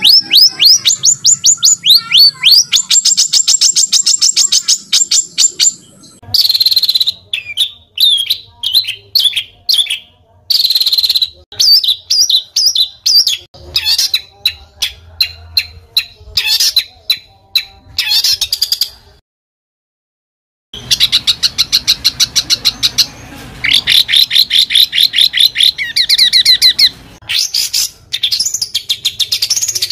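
Songbird song in rapid runs of sharp, repeated chirps and trills, loud and close, delivered in short separate phrases. It stops dead for about a second and a half two-thirds of the way through, then resumes with fast runs.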